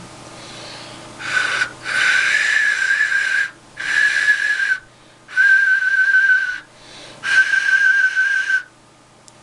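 Handmade clay duck whistle blown five times, each blow a steady, single, fairly high note with breathy hiss around it. The fourth note wavers in a quick tremble.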